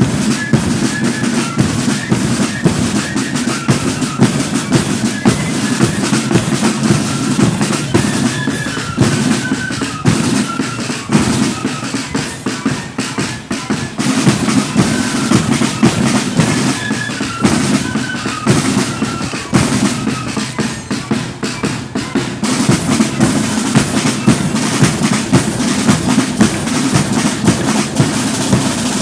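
Marching flute band playing: rapid side-drum strokes and rolls over a bass drum, with flutes carrying a tune above them.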